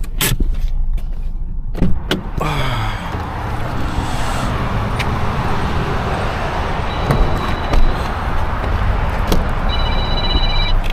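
A few sharp clicks and knocks, then a vehicle running steadily, its pitch gliding down about two seconds in. A high electronic beeping chime starts near the end.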